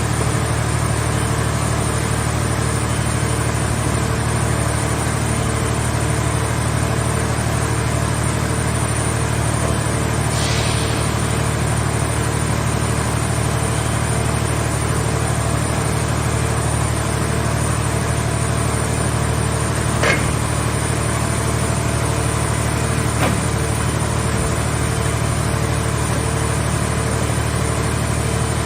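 Scrap car baler's power unit running steadily with a deep hum, with a brief hiss about ten seconds in and two sharp clicks later on.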